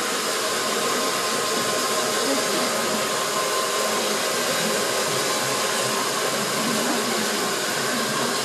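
Handheld hair dryer blowing hot air onto a man's hair with a steady rushing whir, as the hair is being lifted loose with fingertips for styling.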